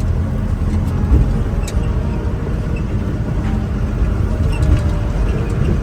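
Steady engine and road rumble inside a moving vehicle, with faint chatter underneath.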